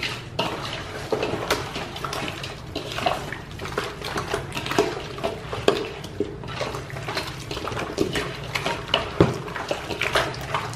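Raw chicken pieces being mixed by hand in a wet marinade paste in an aluminium bowl: irregular wet squelching and slapping, with the meat knocking against the bowl.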